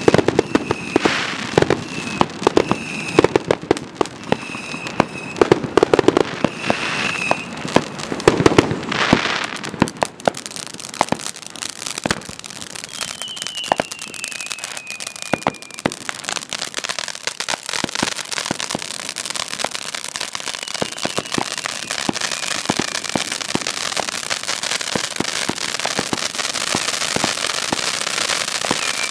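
Dominator Air Aid fireworks firing from several ground positions at once, with dense crackling and popping throughout and louder pops in the first several seconds. Short high whistles repeat early on and a falling whistle comes about halfway, while a hiss of spark showers grows louder near the end.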